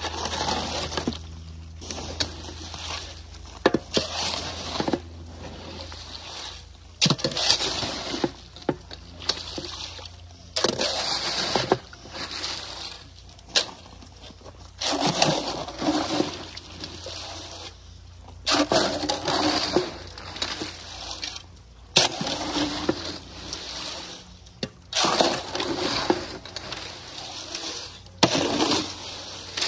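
Square-nose shovel mixing wet concrete in a wheelbarrow: repeated scraping, sloshing strokes, one every second or two, with now and then a sharp knock of the blade against the tray.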